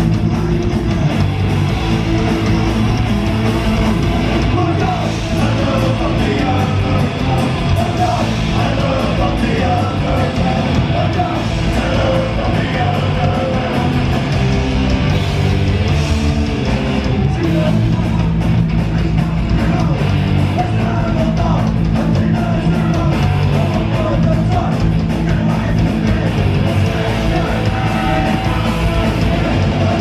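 Punk rock band playing live and loud: electric guitars, bass and drums with shouted vocals, unbroken throughout.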